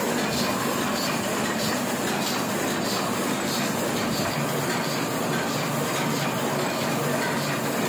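Sheet-fed offset printing press running at steady speed: a continuous mechanical clatter with regular clicks from its sheet-feeding and roller mechanism.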